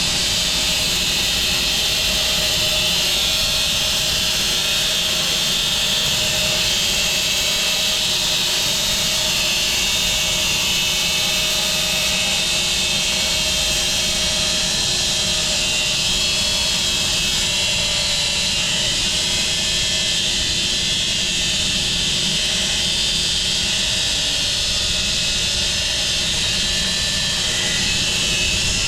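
Home-built 6 ft wide band sawmill running steadily, its blade sawing through a cherry log.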